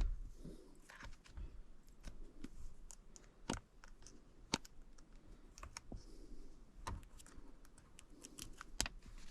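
Scattered light clicks and taps, irregular and well apart, from a phone and USB-C charging cord being handled and plugged in.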